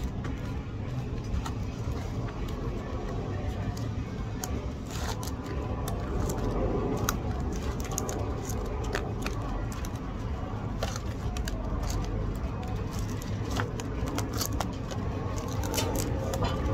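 Restaurant dining-room noise: a steady low hum with faint background voices, and many small sharp clicks and scrapes from eating and handling food at the table.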